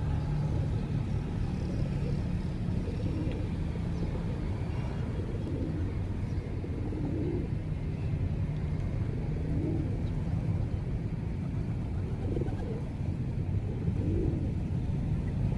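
Pigeons cooing, several low, soft coos every two or three seconds, over a steady low rumble like a running engine.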